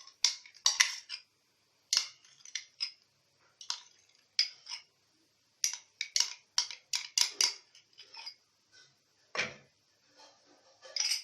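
Spoon clinking and scraping against a cup and mixing bowl in a string of short, sharp clinks and scrapes with gaps between them, as ghee is scraped out of the cup into the batter.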